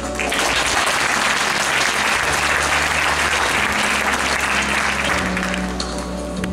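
Audience applauding, starting at once and dying away after about five seconds, with quiet instrumental backing music playing underneath.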